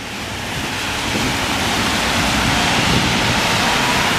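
Tyres of passing cars hissing on a rain-soaked street, the hiss swelling over the first second or so and then holding steady.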